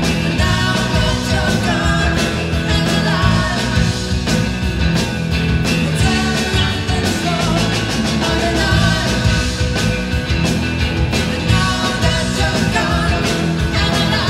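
A live rock band playing: electric guitar, bass and drums, with singing over it.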